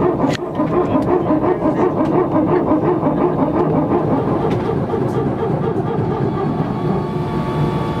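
Airbus airliner's hydraulic Power Transfer Unit (PTU) making its 'barking dog' noise: a loud, steady run of rapid barks. The PTU runs when the hydraulic pressure in one system drops below a set level, and the noise is not a sign of an engine problem.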